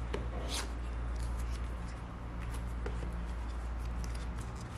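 Paper and thin cardboard of an iPad Pro box rustling, with small taps and scrapes, as its inner paper sleeve and insert are lifted out by hand. A steady low hum runs underneath.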